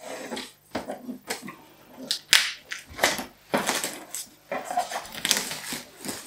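Clear plastic packaging film and tape being peeled off a new inkjet printer's casing and crumpled in the hand, in irregular crinkling rustles.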